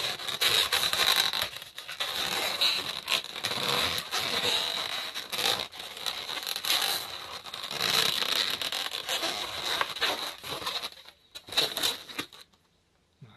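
Latex twisting balloons being twisted and rubbed against each other by hand, a dense run of squeaks and crinkling rubs. The handling stops about a second before the end and it goes almost silent.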